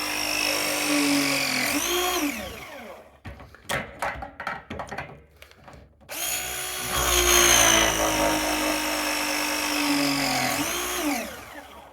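A power drill runs twice, each run long and steady with its pitch slowly sagging before it winds down. Between the runs there are scattered clicks and knocks of tool handling.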